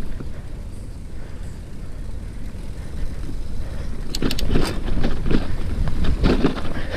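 Rumble of a bicycle without suspension rolling over a rough dirt trail, with wind on the microphone; from about four seconds in it turns rougher, with a run of crunching and rattling over bumps.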